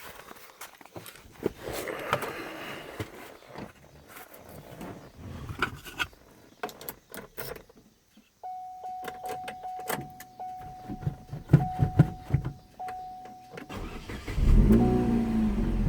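Clicks and handling noises, then a steady electronic chime from about halfway through. Near the end the 2006 Chevrolet Cobalt SS's four-cylinder engine is started, and its speed rises and dips as it tries to settle into idle during the idle relearn after a throttle body replacement.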